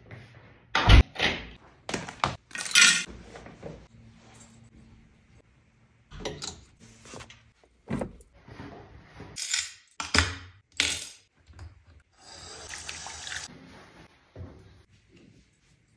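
A run of close household handling sounds: sharp clicks and knocks as a door is opened, the loudest about a second in, then sneakers being set down on a shelf with knocks and rustles. Near the end a tap runs for about a second into a bathroom sink.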